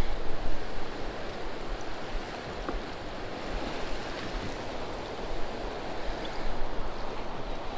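Steady outdoor wash of wind and water, with wind buffeting the microphone in a low rumble and a few faint scattered ticks.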